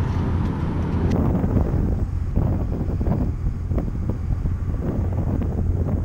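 Strong wind buffeting the camera microphone: a steady, heavy low rumble.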